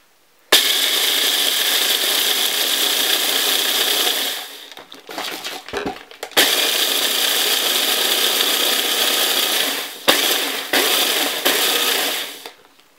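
Kenwood hand blender with its chopper bowl grinding dry pretzel sticks to fine crumbs. The motor runs loud in three spells. It drops off for about two seconds around four seconds in and stops for a moment about ten seconds in.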